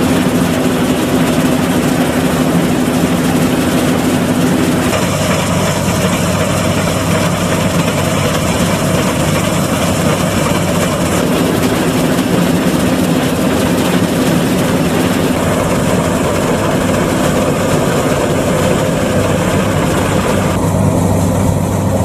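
Massey Ferguson 520 Super II combine harvester running steadily while cutting wheat: a loud, even drone of the engine and machinery. The tone shifts slightly about five seconds in and again near the end.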